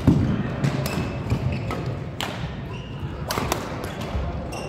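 Badminton play in a large, echoing sports hall: sharp racket strikes on the shuttlecock at irregular intervals, about eight or nine in under five seconds, over players' thudding footfalls on the court.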